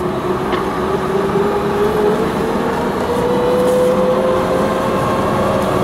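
4x4 vehicle driving along a lane: engine and drivetrain running, with a whine that rises steadily in pitch as the vehicle gathers speed.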